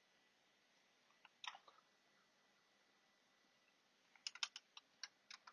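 Faint keypresses on a Razer Huntsman Tournament Edition keyboard with optical switches: a couple of clicks about a second and a half in, then a quick run of about eight clicks near the end.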